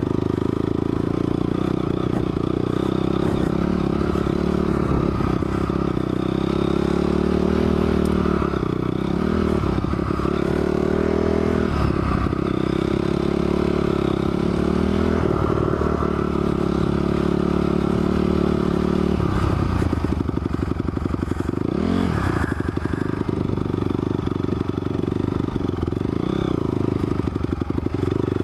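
Honda CRF250R's single-cylinder four-stroke engine running hard while being ridden. Its pitch drops and climbs again several times as the throttle is rolled off and back on, most sharply about three quarters of the way through.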